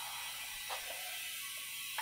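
Compressed air hissing steadily through an air chuck clipped onto the valve stem as a motorcycle tire on an alloy rim is inflated, with a faint click about two-thirds of a second in and another at the end.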